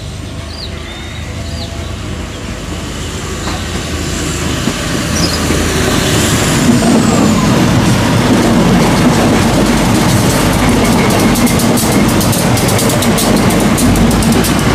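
A passenger train approaching and passing close by on the track, growing steadily louder for about six seconds and then holding loud, with a rapid clatter of wheels over the rail joints in the second half.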